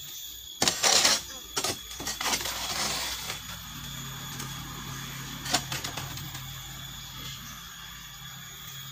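Masonry work: a hand scoop scraping wet mortar in a steel wheelbarrow and rough stones knocking as they are set. There is a loud scrape with sharp clatter in the first couple of seconds and a single sharp knock about five seconds in. A faint steady low hum runs under the second half.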